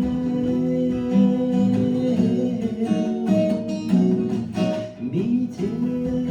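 Acoustic guitar playing an instrumental break in a song, sustained chords with several sharp strummed strokes about three to five seconds in.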